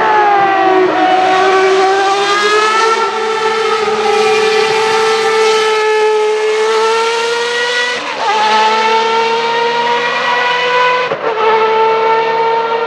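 1989 Ferrari 640 Formula One car's 3.5-litre V12 engine, loud and high-pitched: its pitch falls as the car slows through a corner, then climbs steadily under acceleration, broken by two quick upshifts about eight and eleven seconds in.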